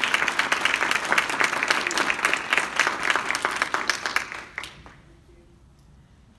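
An audience applauding, with dense clapping close by that dies away a little over four and a half seconds in.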